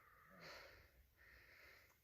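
Faint breathing close to the microphone: a few soft breaths, each about half a second long.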